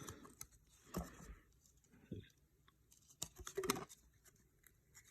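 Faint, short rustles and scrapes of baseball trading cards being handled and peeled apart where they stick together: one about a second in, a brief one about two seconds in, and a longer cluster around three and a half seconds.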